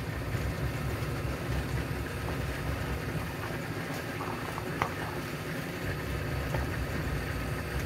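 A steady low background rumble, with a light rustle and a small tap of book pages being handled and turned about four to five seconds in.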